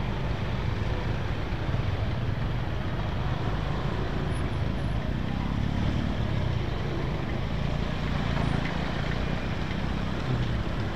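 Steady riding noise from a Honda Vario 125 scooter's single-cylinder engine and CVT moving slowly through traffic on a wet road, with a low rumble and road noise from the surrounding cars and trucks.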